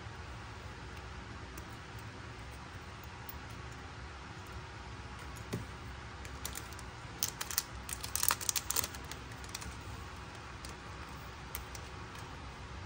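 Small plastic clicks and taps as Mini Verse miniature toy food pieces and packets are handled, with a flurry of quick clicks about seven to nine seconds in, over a steady low hum.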